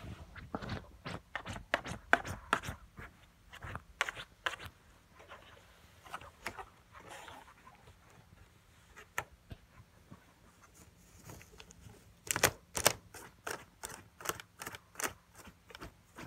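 Small long-haired dog with its head inside a cardboard box of Corn Pops cereal, nosing in the box and crunching the cereal. The sound is a run of sharp, irregular crunches and crackles, busiest in the first few seconds and again from about three-quarters of the way through, with sparser ones between.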